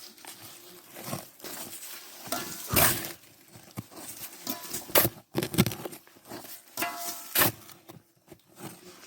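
Irregular knocks and scrapes of hand digging in hard earth, with short faint whines from an excited dog in between.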